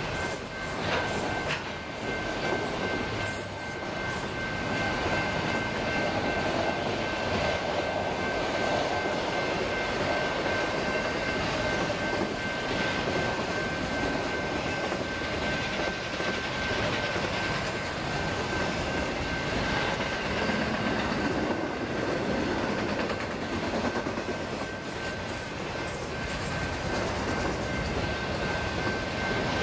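Autorack freight cars of a Union Pacific train rolling past on the rails: a steady rumble and rattle of steel wheels on track, with a thin steady high ring above it.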